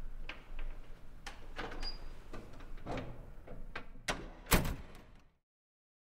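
A scattered series of sharp knocks and thumps over a low background rumble, the loudest about four and a half seconds in; the sound then cuts off to silence a little after five seconds.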